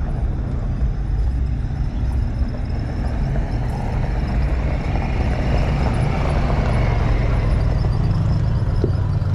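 An engine running steadily, its sound swelling a little from about four seconds in.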